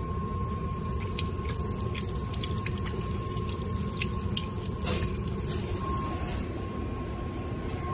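Automatic sensor faucet running into a sink basin, the water splashing off a hand with irregular spatters over the first few seconds. A steady low hum and a faint, thin, steady high tone run underneath.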